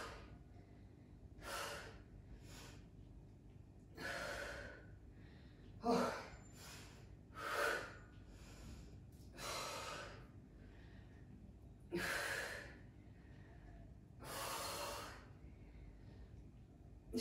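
A woman breathing hard from exertion, with sharp breaths, mostly out, coming about every two seconds and quiet between them.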